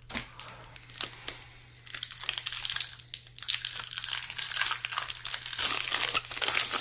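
Foil wrapper of a Magic: The Gathering booster pack crinkling as it is handled and torn open: a few light clicks at first, then dense, loud crackling from about two seconds in.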